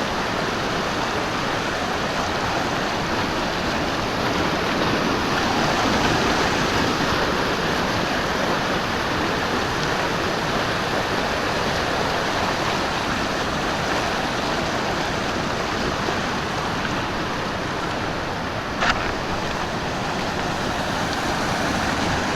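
Stream water rushing steadily, with one short sharp click a few seconds before the end.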